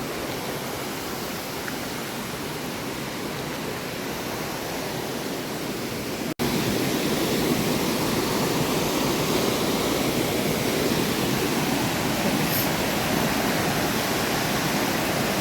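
Rushing river water running and falling over rocks, a steady noise. It drops out for an instant about six seconds in and comes back louder.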